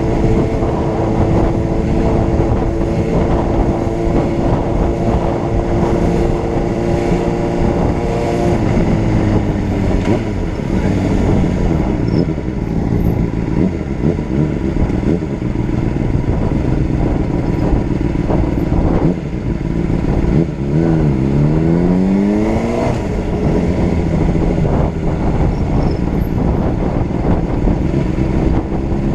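Honda CBR600RR's inline-four engine running on the road, holding a steady pitch, then dropping off about eight seconds in as the throttle eases. About two-thirds of the way through it revs up sharply under acceleration, the pitch climbing fast.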